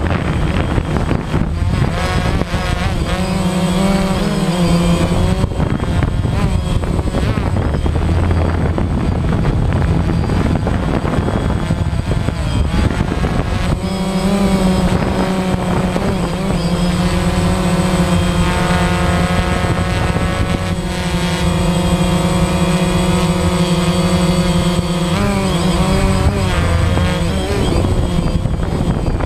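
DJI Phantom quadcopter's motors and propellers whining close to the onboard camera's microphone, with a rough rushing noise underneath. The pitch wavers and shifts as the drone manoeuvres, holding steadier through the middle.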